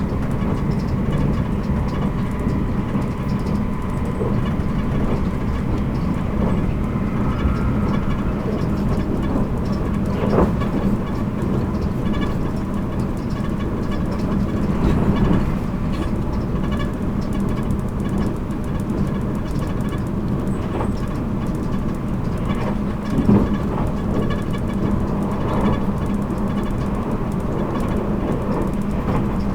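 Running noise of a 783 series electric train's motor car at speed: a steady rumble of wheels on rail with a constant hum, broken by a couple of short knocks, one about ten seconds in and one near the twenty-three-second mark.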